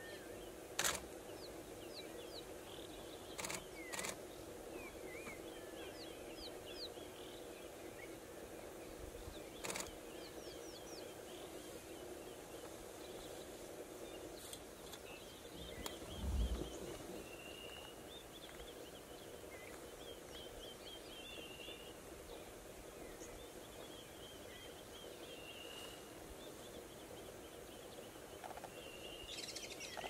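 Wild birds calling in the background: many short chirps and trills overlap throughout, over a steady low hum. A few sharp clicks come in the first ten seconds, and a soft low thump comes about midway.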